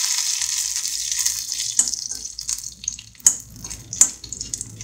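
Hot oil sizzling in an iron kadai as curry leaves, dried red chillies and mustard seeds fry for a tempering; the hiss fades steadily. A steel ladle stirs the pan, with a few sharp clicks from about two seconds in.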